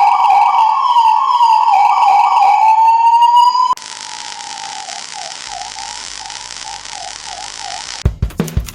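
Electronic ambulance siren, loud, its pitch sweeping rapidly up and down. A little under four seconds in it cuts off and gives way to a quieter version with quick repeated yelping dips in pitch. Near the end, sharp rhythmic hits begin.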